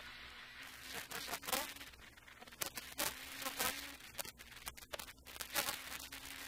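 Rally car driving a stage, heard from inside the cockpit: a faint, thin, buzzing engine drone with many sharp knocks and clicks from the car's body.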